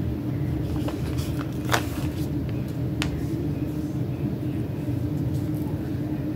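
A steady low hum with light paper crinkles and a few sharp ticks as a sticker sheet is handled and stickers are peeled and pressed onto a planner page; the crispest tick comes about three seconds in.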